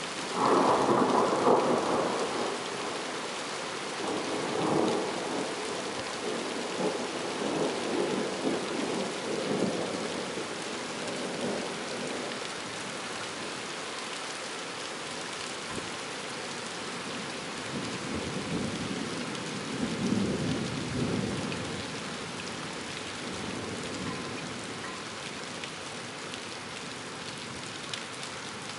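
Thunder breaks in suddenly about half a second in, loudest for the first two seconds, then rolls on in uneven rumbles for about ten more seconds, with a second rumble about twenty seconds in. Steady rain falls throughout.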